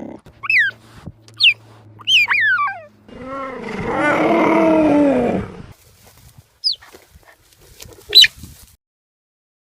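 Cheetah chirping: a few short, high calls that fall in pitch, then a longer, lower wavering call lasting over two seconds, and two more brief high chirps near the end.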